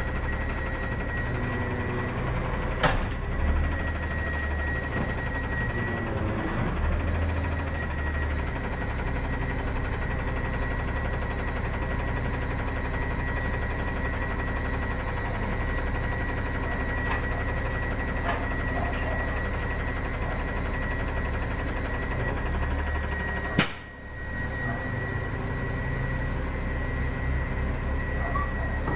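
Autocar Xpeditor roll-off truck running at idle with a steady high whine from its hydraulics as the truck-mounted knuckle-boom crane folds down into its stowed position. A sharp click about three seconds in.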